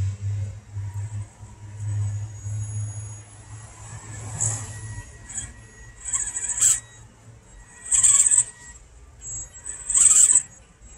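RGT D90-style RC scale crawler's electric motor and gear train whining in short throttle bursts as it crawls over rocks. The three loudest bursts come in the second half.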